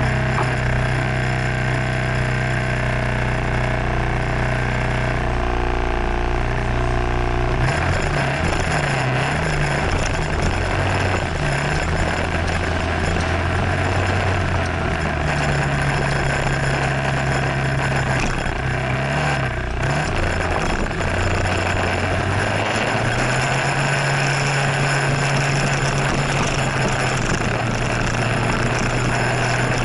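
Motor scooter engine running while riding: its note holds steady for the first several seconds, then rises and falls repeatedly with the throttle, over a constant rushing noise.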